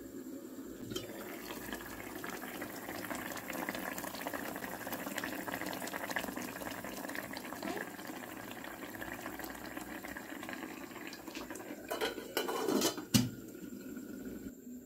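Curry bubbling at a simmer in an open electric rice cooker, a steady crackle of small pops. About 12 to 13 seconds in come a few louder knocks as the metal lid is put back on.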